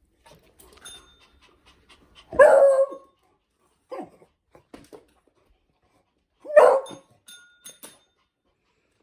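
A dog barks twice, about four seconds apart, loud and short each time, with a fainter short yelp between them.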